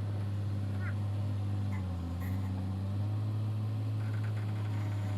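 An engine running steadily with a low, even hum, its pitch sagging briefly about two seconds in before settling back.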